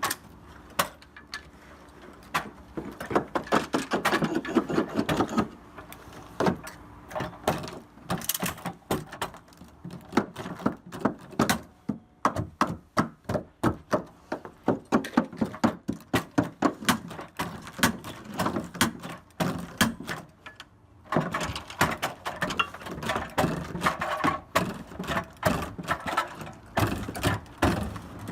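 Carpet installation tools knocking: a long run of sharp knocks and thumps, often several a second, with a brief pause about three quarters of the way through.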